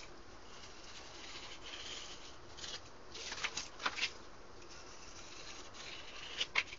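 Paper covering and balsa of a model-plane wing rubbing and scraping on a cardboard work board as the excess paper is trimmed and handled, with a few short sharp scrapes around the middle and one near the end.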